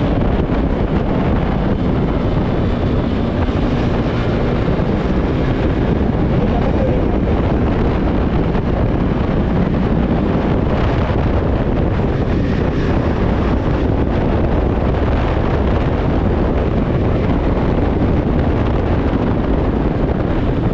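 Steady wind rush buffeting the microphone while riding a KTM Duke 200 at a constant speed, with the bike's single-cylinder engine running underneath.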